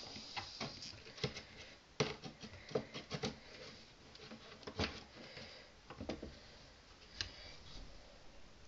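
Irregular light clicks and knocks of objects being handled, with sharper knocks about two seconds in and again near five seconds.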